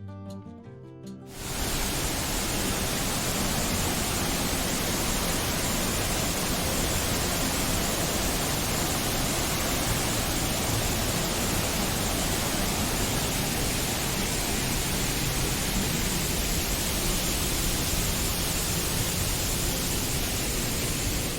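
Steady rush of a large waterfall's falling water, a dense, even noise with no break. It cuts in suddenly after a moment of acoustic-guitar background music, and the music returns at the very end.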